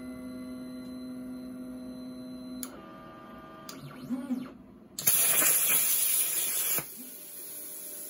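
Stepper motors of a LowRider 3 CNC plasma table whining steadily as the gantry moves the torch. About five seconds in, the plasma cutter fires through the machine torch: a loud, even hiss with a high whistle for nearly two seconds, after which a quieter hiss carries on.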